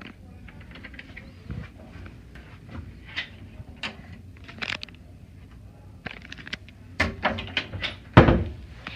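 Scattered clicks and knocks of things being handled, with a quick run of louder knocks about seven seconds in and the loudest thump just after eight seconds.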